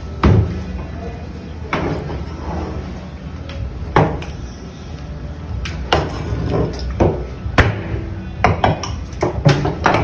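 Sharp knocks and clatters of a knife and metal spike against a plastic cutting board and stainless steel counter while an eel is butchered: about nine strikes at irregular intervals, coming closer together near the end, over a steady low hum.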